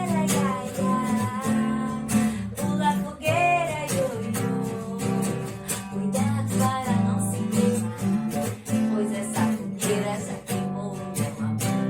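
Music with strummed acoustic guitar and a steady beat.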